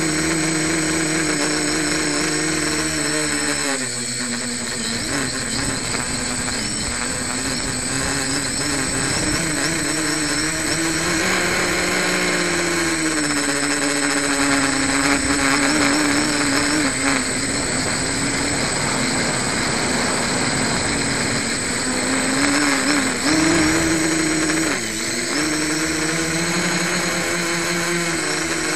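Homebuilt quadcopter's electric motors and propellers, heard from the camera on the craft, with a hiss of wind and vibration. The hum rises and falls in pitch as the throttle changes, dropping sharply about four seconds in, rising again around twelve seconds and twenty-three seconds, and falling near the end.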